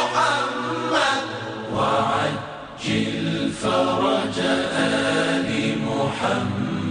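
Voices chanting a melodic Islamic devotional chant in phrases with long held notes, over a steady low tone.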